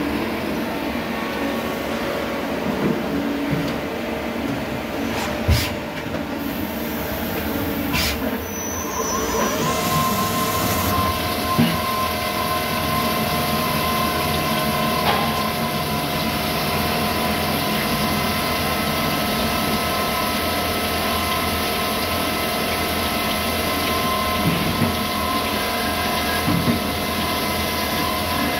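Kovosvit Compact A35 automatic lathe running, with coolant spraying in the machining area: a steady mechanical din with a few sharp knocks. From about ten seconds in, a steady whine runs on above it.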